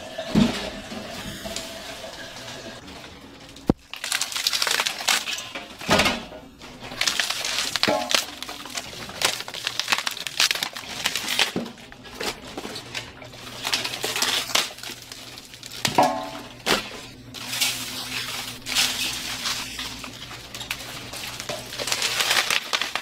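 Metal pans and kitchen utensils clattering and scraping in irregular knocks, with a few short ringing metal strikes and one sharp click a few seconds in.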